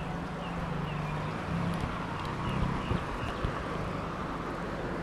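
Street traffic: car engines running and tyres on the road, a steady low hum under a broad noise. A bird chirps repeatedly, a couple of times a second, over the first three seconds or so.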